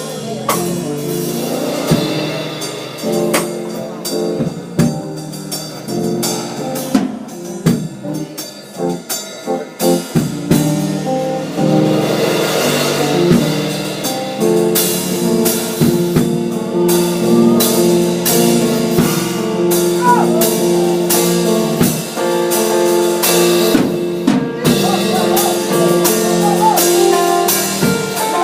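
Live church band playing worship music: sustained organ or keyboard chords over a drum kit, growing fuller about halfway through.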